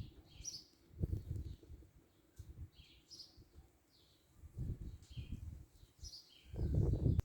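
Small birds chirping outdoors, short high chirps repeated every half second or so. Low rumbles come and go underneath, loudest near the end.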